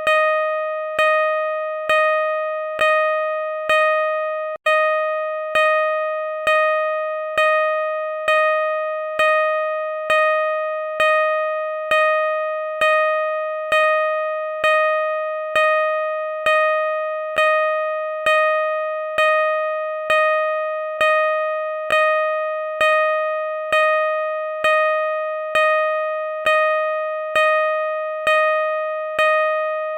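Car reverse-parking sensor beeping: a single electronic tone pulsing at a steady rate, roughly every three-quarters of a second. Each beep fades and runs straight into the next, with one momentary break a little over four seconds in.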